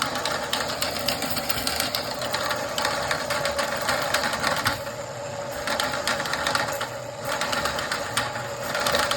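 Ridgid K-50 sectional drain machine running, spinning a chain knocker head on its cable: a steady motor hum under a fast, continuous rattle of the flailing chains, opened out fully. The rattle briefly thins about five seconds in and again around seven seconds.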